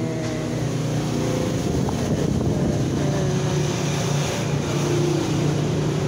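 A motor vehicle engine running steadily nearby, a continuous low hum.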